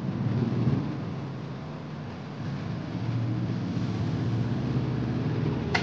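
A kitchen knife scoring slits into a whole pomfret on a wooden cutting board, over a steady low rumble that is the loudest thing heard. A single sharp tap of the knife on the board comes near the end.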